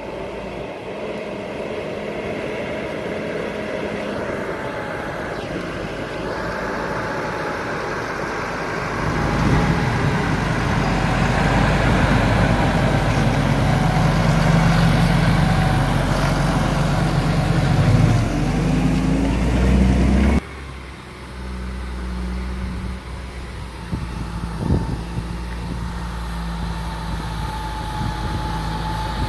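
Fendt 936 tractor's six-cylinder diesel engine running as the tractor drives on an asphalt lane, with tyre and road noise. It grows louder as the tractor comes close and passes, then breaks off abruptly about two-thirds of the way through to a quieter, steady run of the engine as the tractor approaches again.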